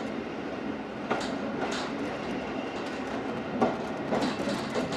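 Train running noise heard from the cab of a converted brake coach: a steady rumble of wheels on rail, with four sharp clacks as the wheels cross rail joints and pointwork.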